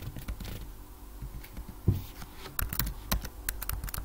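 Typing on a computer keyboard: scattered keystrokes entering numbers and pressing Enter, coming faster in the second half, with a dull thump about two seconds in.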